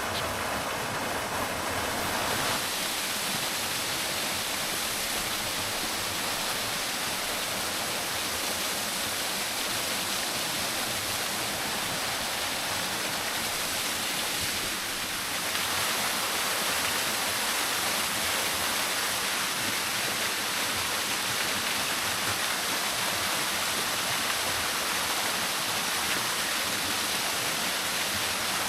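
Small waterfall rushing steadily, an even hiss of falling water that steps up a little in loudness about halfway through.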